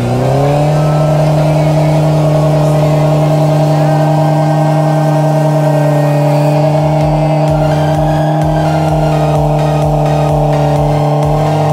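Diesel engine of a Mitsubishi Canter 4x4 dump truck revving up, then held at steady high revs as it climbs through deep mud, its pitch raised by the sped-up footage. From about halfway, an electronic music beat with a pulsing bass comes in underneath.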